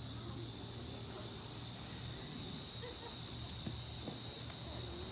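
Steady insect chorus: an even, high-pitched buzzing hiss from insects in the surrounding greenery, over a low steady hum.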